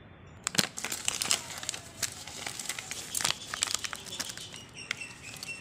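Plastic spice packet crinkling as turmeric powder is shaken out of it, a run of quick, irregular crackles.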